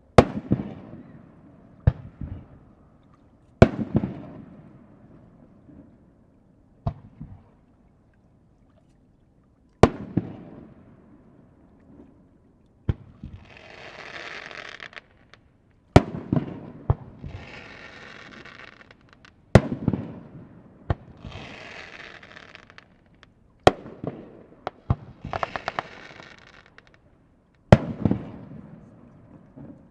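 Aerial fireworks shells bursting, about a dozen sharp booms a second or more apart, each trailing off in a rolling rumble. In the middle and later part several bursts are followed by a second or two of dense crackling from crackle stars.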